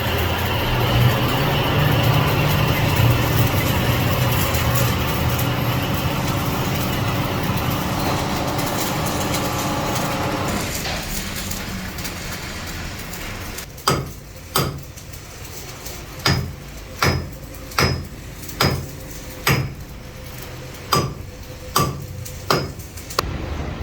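Steady mechanical running noise with a low hum that fades out about ten seconds in. It is followed by about ten hammer blows on steel, each ringing briefly, spaced roughly one every three-quarters of a second.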